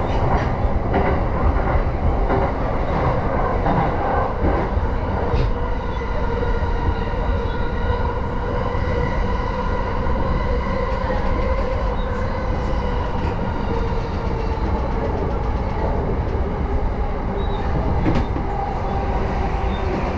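Running noise inside a JR Yamanote Line electric commuter train carriage: a steady rumble of wheels on rails with a steady whine over it and a few brief clicks.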